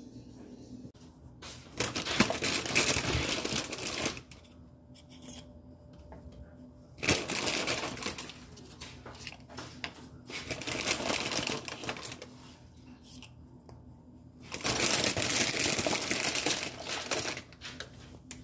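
Plastic cracker bag crinkling and rustling in four bursts of one to three seconds each as crackers are pulled out by hand.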